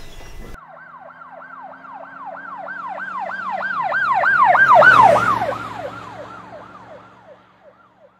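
Emergency-vehicle siren on a fast yelp, about four rising-and-falling wails a second, passing by: it starts suddenly, grows louder to a peak about five seconds in, then drops slightly in pitch and fades away.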